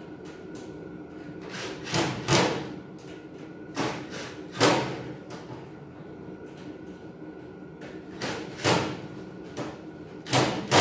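Sharp metallic knocks and clanks from a steel Kobalt tool cabinet's panels being handled while its screws are tightened down, coming in four pairs spread through, over a steady low hum.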